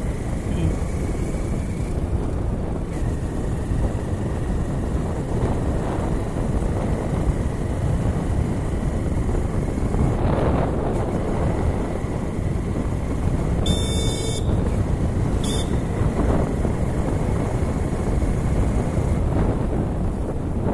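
Motorcycle riding along a road: its engine runs steadily under heavy wind noise on the microphone. About two-thirds of the way through there are two brief high-pitched sounds.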